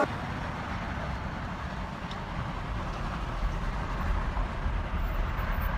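Steady city street traffic: a continuous low rumble of cars passing through an intersection.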